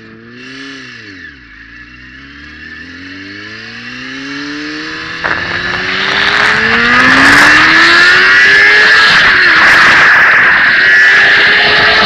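2004 Kawasaki ZX-6R's 636 cc inline-four engine accelerating hard through the gears: its pitch climbs in long pulls, with a shift about five seconds in and another about nine seconds in, and wind noise builds to a loud rush as speed rises.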